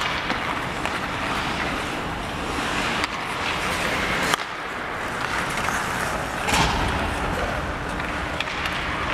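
Ice hockey play: skate blades scraping and carving on the ice under a steady arena din, with a few sharp stick-and-puck or board knocks.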